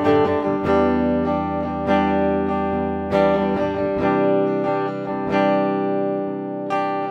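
LTD EC-401FM electric guitar with active EMG pickups, played on its neck pickup through a clean tone. Chords are strummed and left to ring, with a new strum every half second to a second.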